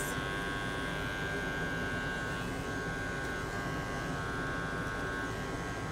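Electric dog grooming clippers running with a steady buzz as the blade is worked through the fur.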